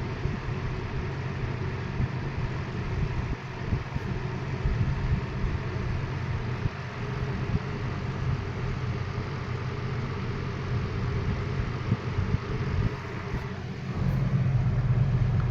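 2001 Lasko Premium 20-inch box fan (model 3723) running steadily on its low speed setting: an even motor hum with the whoosh of the blades.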